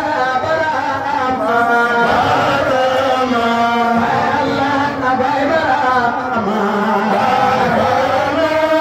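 A woman singing a devotional chant into a microphone, with long held notes that bend in pitch.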